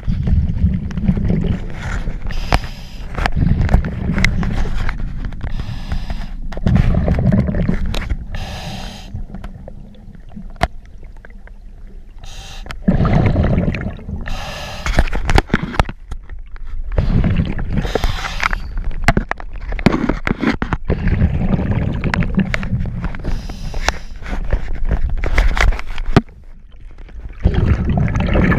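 Muffled underwater rumble of fast river water surging around the camera housing, swelling and falling in irregular waves every few seconds, with scattered sharp clicks and knocks.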